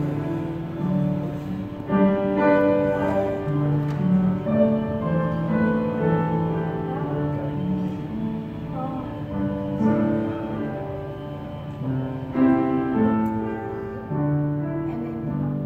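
Slow instrumental music: piano with long held low notes changing every second or so.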